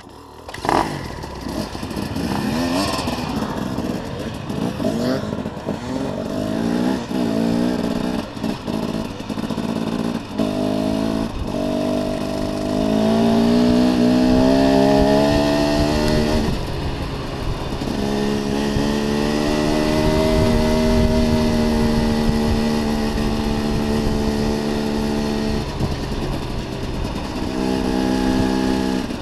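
Dirt bike engine pulling away and riding a dirt trail. Several short climbs in pitch, each cut off as it shifts up, then longer pulls at steadier throttle, with a brief ease-off about halfway through.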